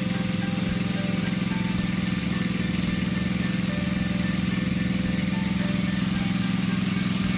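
Insulation removal vacuum running, drawing air through its hoses and an inline debris-separator box: a steady low drone over a constant hiss.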